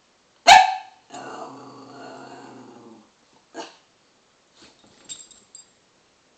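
A pet dog barks once sharply, then makes a drawn-out, low-pitched funny noise lasting about two seconds, followed by a shorter call.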